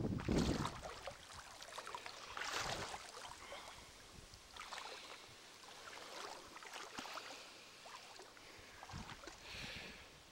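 Water rushing over the boulders of river rapids, swelling and falling in irregular surges, with a loud low rumble in the first second.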